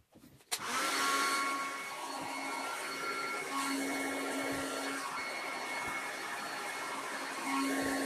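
Heat gun switched on with a click about half a second in, then its fan blowing steadily with faint whistling tones as it heats a plastic-bottle sleeve over a hose joint; a low hum comes in twice as it is moved.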